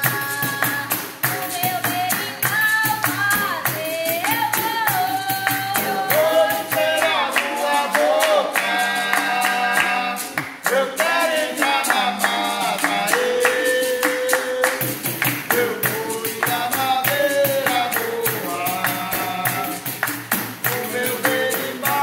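Capoeira music: a berimbau and a pandeiro playing a steady rhythm with hand-clapping, under sung verses.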